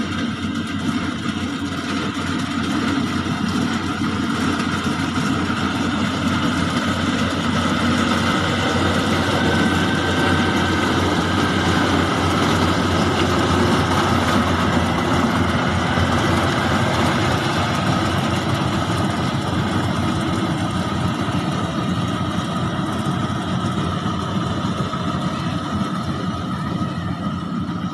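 Rice harvesting machine running steadily, its engine and machinery making a dense, continuous mechanical noise that grows a little louder mid-way and eases off again.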